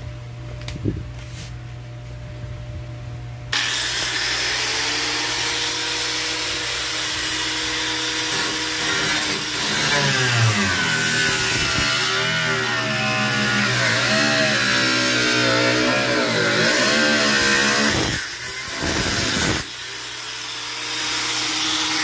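Angle grinder with a cutting disc starts with a rising high whine. It then cuts into a car's rusted rocker-panel sheet metal, its pitch dropping and wavering under load. It stops, gives one short burst, and near the end is started again and runs free.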